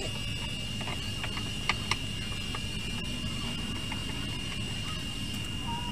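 A few faint clicks and taps of a screwdriver and plastic as the back cover of a CRT television is worked loose, over a steady low hum and a thin, steady high-pitched tone.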